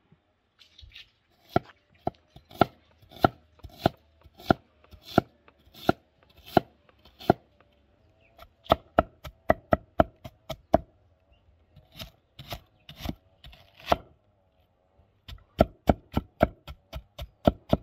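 Cleaver chopping onion on a round wooden cutting board: repeated knocks of the blade on the wood, spaced out at first, then in quicker runs with short pauses between them, fastest near the end.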